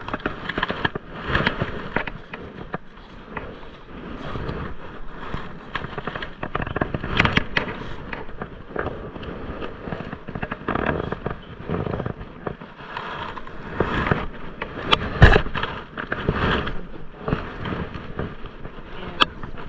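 A magnet-fishing rope being hauled up hand over hand through rubber-coated work gloves, close to a body-worn camera's microphone: a dense run of crackling, scraping and rubbing, with a sharp knock about three quarters of the way through.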